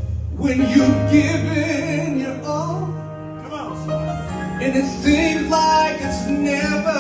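Man singing a gospel song through a handheld microphone over steady accompaniment, his voice sliding through long, bending melodic runs.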